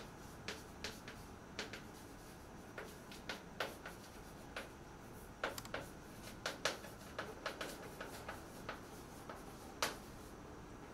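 Chalk writing on a blackboard: an irregular run of short, sharp taps as the letters are struck out.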